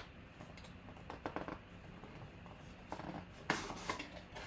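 Hands handling packaging: short rustles and light clicks in two clusters, about a second in and again around three to four seconds in, as the autographed baseball box is opened.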